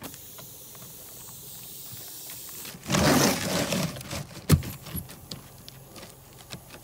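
A rough scraping rustle lasting about a second, then a single sharp shot from a Bostitch pneumatic coil roofing nailer driving a nail through an asphalt shingle, followed by a few light clicks.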